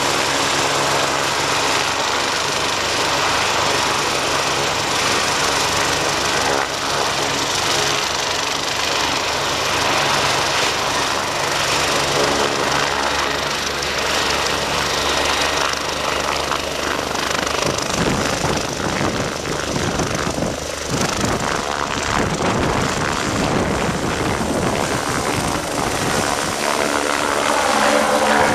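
BK 117 twin-turbine helicopter running on the pad with its main rotor turning, then taking power for lift-off. About two-thirds of the way through the low rotor beat grows heavier, and the sound swells near the end as it lifts.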